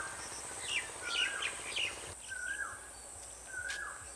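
A bird repeats a short whistled note, rising and then dropping, about once every second and a quarter: the call of an Asian koel. Other birds chirp over it in the first couple of seconds, and a steady high-pitched whine runs underneath.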